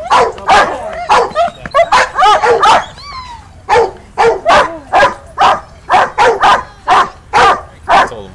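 A Doberman barking repeatedly, about two barks a second, with a few high, falling whines in between: excited, worked-up barking.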